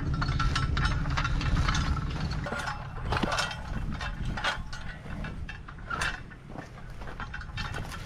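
Off-road Jeep creeping down rough ground. A low engine rumble fades after about two and a half seconds, with repeated rattling and clinking over it.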